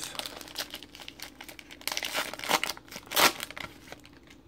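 Foil trading-card pack wrapper being torn open and crinkled in the hands, a run of crackles with louder crinkles about two and three seconds in.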